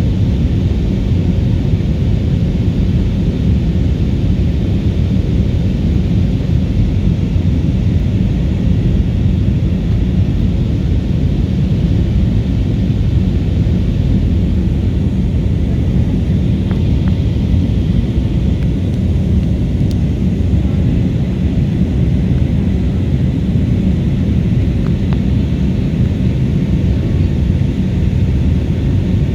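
Steady cabin roar of an Airbus A320neo airliner in flight, engines and airflow making an even low rumble with a fainter hiss above it.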